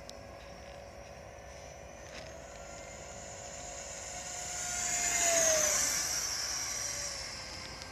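70 mm electric ducted fan of an RC Kyosho F-86 Sabre jet whining as the model flies past. The high whine swells to its loudest about five and a half seconds in, drops in pitch as the plane goes by, then fades.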